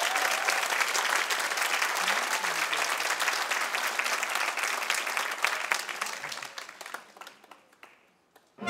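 Theatre audience applauding a ballet performance, the clapping thinning out and dying away about seven seconds in, leaving a moment of near silence.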